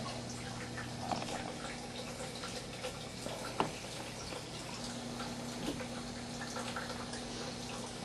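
Water dripping and trickling in a vivarium's water section, over a steady low hum, with one sharp click about three and a half seconds in.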